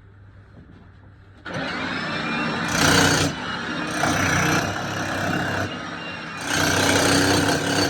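Hammer drill starting about a second and a half in and running on, with three louder surges.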